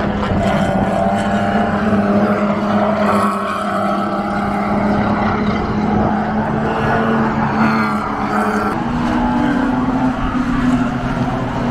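Race car engines running hard around the circuit, heard from trackside as a steady engine drone with a noisy rush. The pitch steps up slightly about nine seconds in and then eases back.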